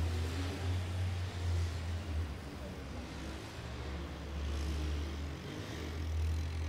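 Small single-cylinder four-stroke engine of a Honda 50 step-through motorcycle running as it is ridden, heard at a distance, with a car driving past partway through, over a steady low rumble.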